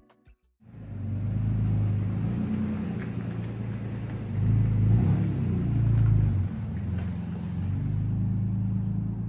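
A 2011 Toyota Tacoma's V6 engine running as the truck drives slowly by. It starts about half a second in, swells louder around the middle as the truck passes, then eases back to a steady run.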